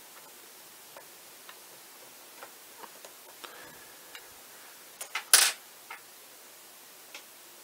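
Small, faint metallic clicks of a precision screwdriver backing out a bayonet-mount screw on a Nikon zoom lens, then one louder short clatter about five seconds in.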